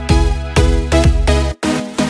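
Electronic dance background music with a steady beat, which cuts out suddenly for a moment about one and a half seconds in before a new section starts.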